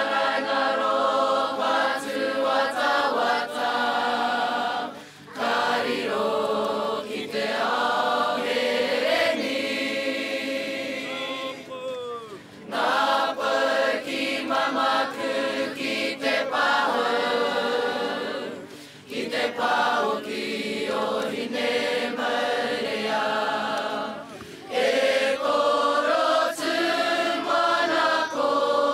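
A large Māori kapa haka group of children and adults singing together in unison. The song comes in long phrases broken by about four short pauses.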